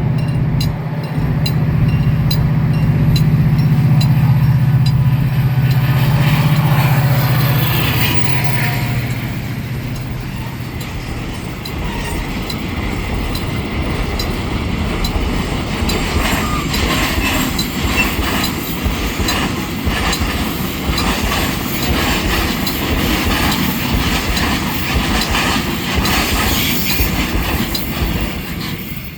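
Diesel-hauled freight train of open wagons passing a level crossing. A loud low engine drone dominates the first several seconds, then the wagon wheels click in a steady rhythm over the rail joints, fading only at the very end.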